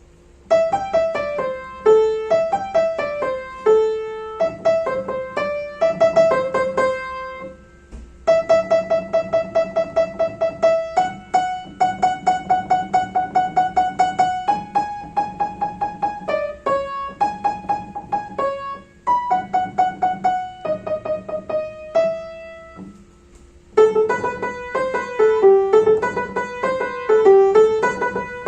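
Solo piano playing an upbeat pop melody with runs of quick repeated notes, pausing briefly about eight seconds in and again near the end.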